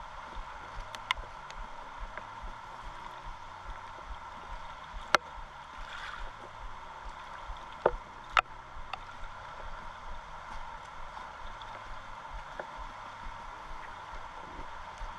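River water flowing steadily along the bank. A few sharp knocks or clicks cut through it, the loudest about five seconds in and two more close together around eight seconds.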